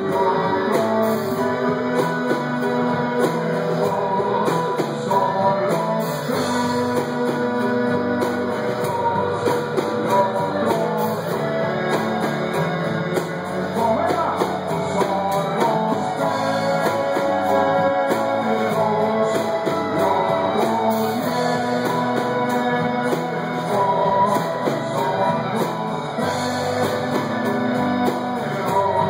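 Live rock band playing a song: a male singer over guitar and the band.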